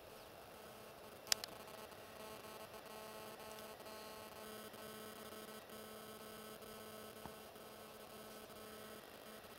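A sharp click about a second in, followed by a faint steady hum made of several held tones.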